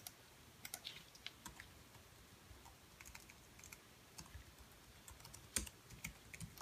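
Faint, irregular keystrokes on a computer keyboard as a password is typed in, with one louder key press about five and a half seconds in.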